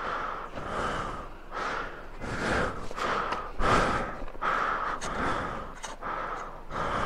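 A long-handled hand tool scraping and chipping packed snow and ice, in quick repeated strokes about twice a second, clearing snow from in front of a car wheel stuck in snow.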